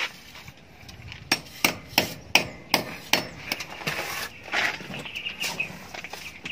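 A quick series of sharp knocks, about three a second, then softer scraping as a steel plastering trowel spreads cement mortar over a hollow-block wall.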